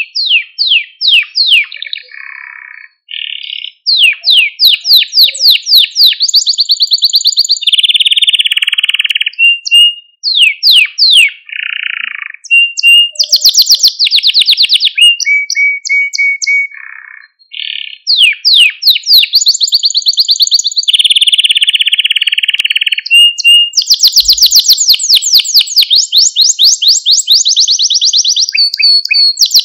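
Male canary singing: phrases of fast downward-sweeping notes, buzzy stretches and rapid rolling trills, broken by short pauses, then a long, fast, unbroken trill over the last few seconds.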